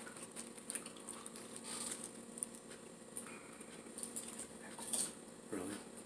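People chewing and crunching tortilla chips topped with melted cheese: soft, scattered crunches, with a louder crunch about five seconds in.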